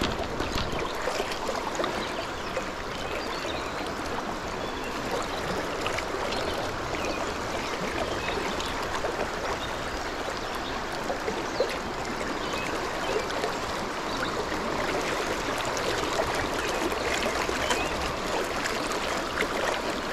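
Fast, rocky mountain stream running steadily, a constant rush of water over rocks.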